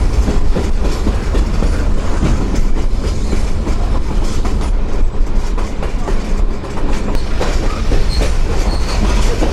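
Excursion train car rolling along the track: a steady low rumble with the wheels clicking and clacking over the rails.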